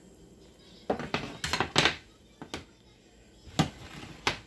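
A metal baking sheet of roasted potato wedges being taken off the oven rack and set down: a series of sharp metallic knocks and clatters, with a few loud ones around the second and near three and a half seconds in.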